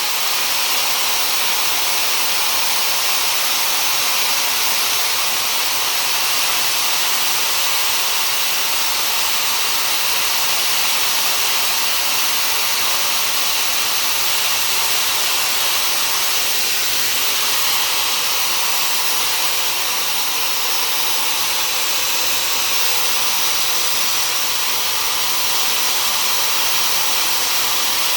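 Dyson hair dryer with its diffuser attachment running steadily on the lowest heat setting: a constant airy hiss of blown air.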